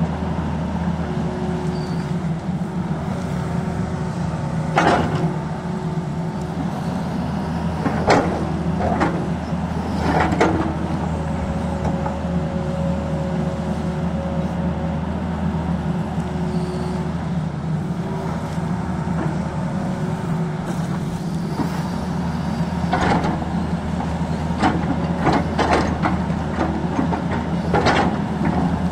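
Tata Hitachi tracked excavator's diesel engine running steadily under load as the machine digs. Its steel bucket strikes and scrapes rock several times, giving short sharp clanks and grinding.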